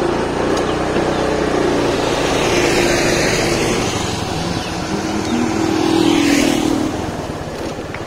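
A motor vehicle running on a road: a low engine hum under a steady rush of wind and tyre noise, swelling twice, about three seconds and six seconds in.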